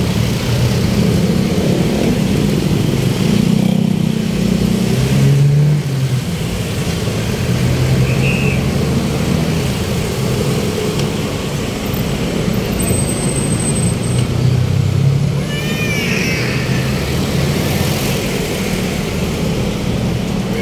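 Urban road traffic: vehicle engines running and passing steadily, with brief high squeaks about sixteen seconds in.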